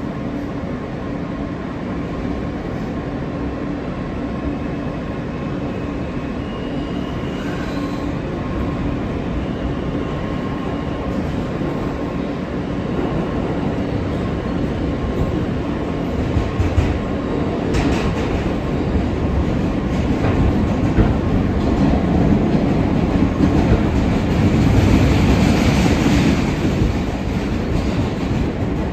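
New York City subway train heard from inside the car as it rolls along the track: a steady rumble that grows louder through the second half, with rail clatter and a few sharp clacks.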